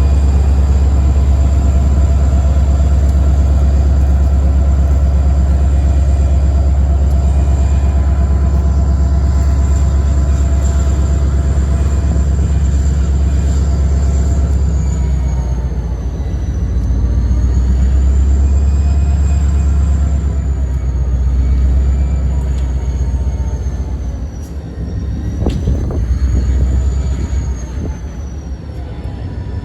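Train locomotive running with a strong, steady low rumble, easing and wavering in loudness through the second half, with a few sharp clicks near the end.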